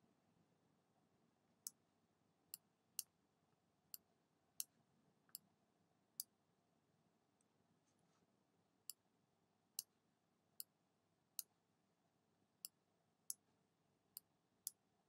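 Computer mouse button clicks: about fifteen sharp single clicks, spaced irregularly half a second to a second apart with a longer pause in the middle, over near silence.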